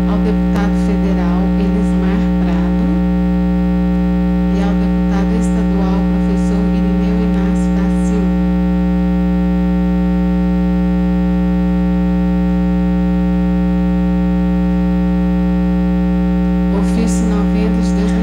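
Loud, steady electrical mains hum with a stack of overtones in the microphone sound system. Faint, indistinct voices murmur under it in the first half and again near the end.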